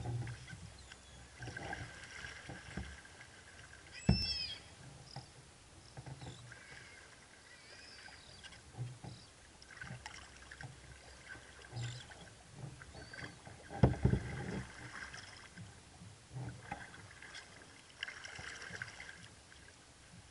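Paddle strokes from a Werner kayak paddle splashing and dripping in the water beside a Necky Chatham 18 sea kayak, coming every second or two. Two sharper knocks stand out, about four seconds in and again about fourteen seconds in.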